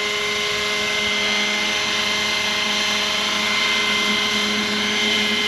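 Electric Roban 600-size Hughes MD500 scale RC helicopter running steadily on the ground at a 1600 RPM head speed, giving an even whine with no change in pitch.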